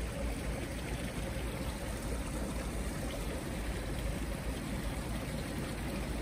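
Steady rush of bubbling, circulating water in restaurant live-seafood tanks.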